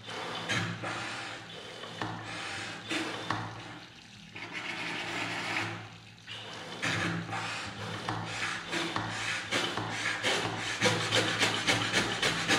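Tap water running from a bathroom faucet into a ceramic wash basin, splashing over a pichkari water gun's nozzle held in the stream; the splashing drops away briefly twice. Near the end a fast run of short clicks, about five a second, comes in over the water.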